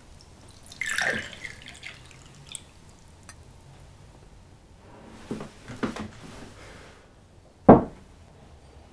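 Small sounds of a drink and glassware in a quiet room: a short liquid splash or clink about a second in, a few light knocks a little after halfway, and a single loud low thump near the end.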